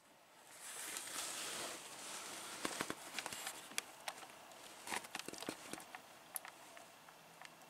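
Faint breeze and light rustling at an open screened window, with scattered soft clicks.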